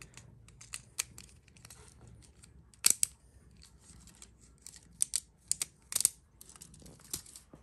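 Light clicks and crinkles of small plastic Beyblade parts and plastic wrapping being handled, with sharper clicks about three seconds in and again around five to six seconds in.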